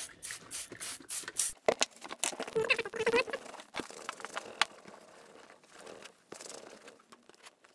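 Leather cleaner being rubbed over a vinyl bicycle seat and wiped off with a cloth: scuffing, crinkling strokes of pad and cloth on the vinyl, busiest in the first few seconds and fainter after.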